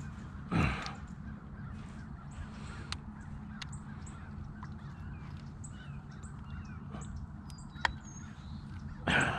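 Two harsh crow caws, one just after the start and one near the end, over faint chirping of small birds, a few sharp clicks and a steady low rumble.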